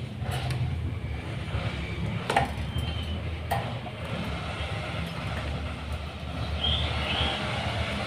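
A few sharp taps of a white-breasted waterhen's beak striking a wooden plank as it pecks at food, over a steady low mechanical rumble. A couple of faint, short, high chirps come in the middle and near the end.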